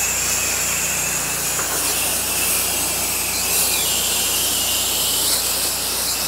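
Pressure washer wand spraying, a steady hiss of the water jet, with the 8 GPM machine's engine humming low underneath.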